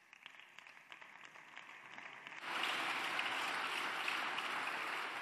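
Deputies applauding in a parliament chamber: a few scattered claps at first, then about two and a half seconds in a dense, steady applause from many people that starts to fade near the end.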